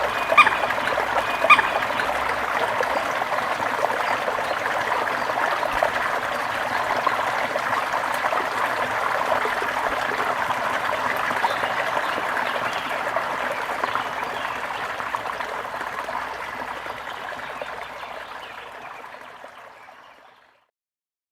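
A fast-running babbling brook: steady rushing, splashing water, with two brief higher-pitched notes about half a second and a second and a half in. The water sound fades out over the last few seconds, ending about 20 seconds in.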